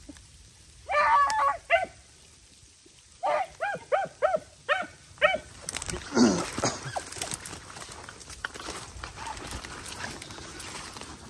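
Rabbit-hunting dogs yelping on the chase: a cluster of calls about a second in, then a run of about six short yelps. Midway the calls give way to crackling and rustling of dry brush as someone pushes through the undergrowth.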